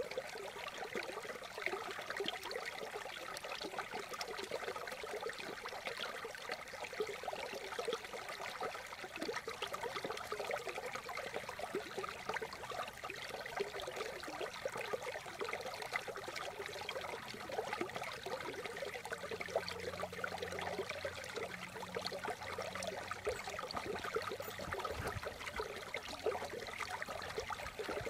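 Water trickling steadily in a small stream or inlet.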